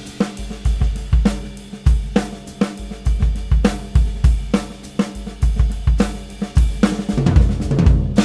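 Jenkins-Martin Blaemire Series drum kit played solo: kick drum, snare and toms with cymbals and hi-hat in a steady groove. Some drum hits ring on with a pitched tone, and the playing grows busier near the end.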